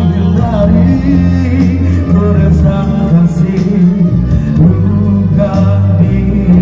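A singer's voice amplified through a microphone and PA system, carrying a bending melody over electronic keyboard backing with a steady, heavy bass.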